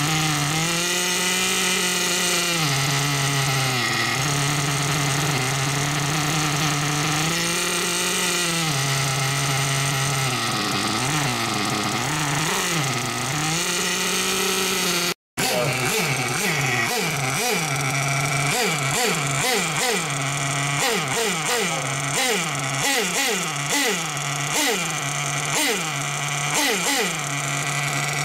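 Nitro (glow-fuel) RC engine, a modded BG Engines Fusion X3 EX with a tuned pipe, running on the bench during break-in. It holds a fairly steady speed with a few dips, then after a short cut about halfway its speed rises and falls over and over.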